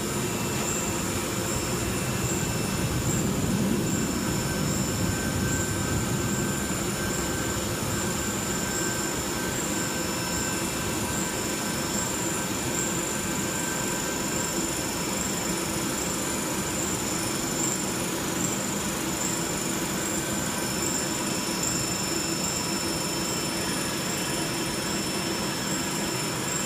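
Plastic pouch-zipper making machine running steadily: an even mechanical hum and rumble with a constant high-pitched whine over it.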